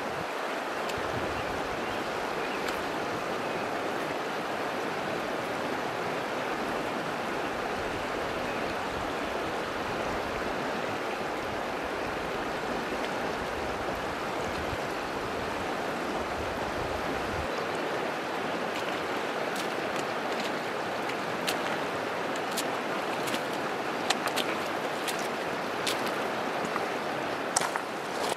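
Mountain river rushing steadily over a shallow rocky riffle. A low rumble under it stops about two-thirds of the way through, and scattered sharp clicks come in the last third.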